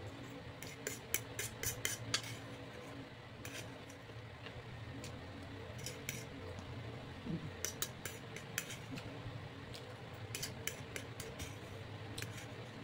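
Fork and spoon clinking and scraping against a plate while eating noodles, in scattered clusters of short clicks, over a steady low hum.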